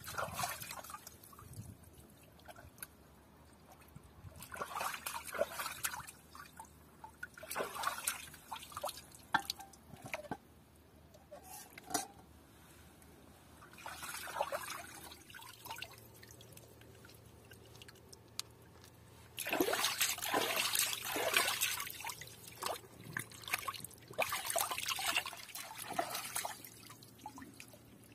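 Water trickling and splashing in a series of short bursts, with a longer, louder stretch about twenty seconds in.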